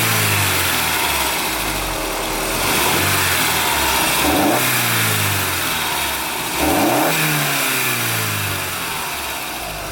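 Volkswagen Golf GTI's 1.8-litre turbocharged four-cylinder engine (AUM 20v) blipped from idle about three times, each rev rising and falling back, heard from the open engine bay with the standard airbox still fitted.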